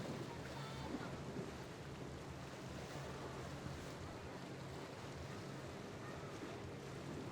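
A boat engine running with a steady low hum, under a constant hiss of surf and wind on the microphone.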